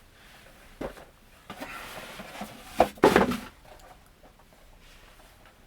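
Funko Pop boxes and their packaging being handled: a knock about a second in, rustling, then a louder knock and scrape about three seconds in.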